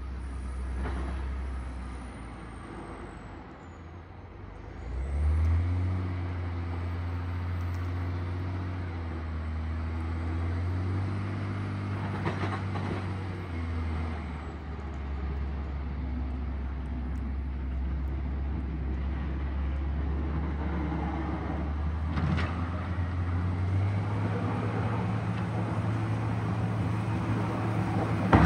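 John Deere 770G motor grader's diesel engine running under load while plowing snow. It revs up about five seconds in and then pulls steadily, with the plow blade scraping the road surface growing louder as it approaches. A sharp, loud knock right at the end.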